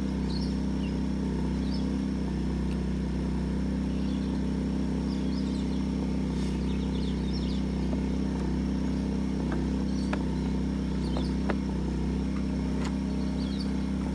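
A second small petrol generator running steadily, a low even hum. Birds chirp now and then, and a few light clicks come from carburettor parts being handled.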